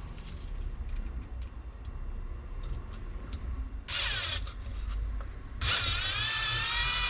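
Cordless drill-driver driving screws to fix a car door speaker in place: a short run of motor whine, then a longer run that rises briefly and then holds steady under load. Light clicks of screws being handled come before it.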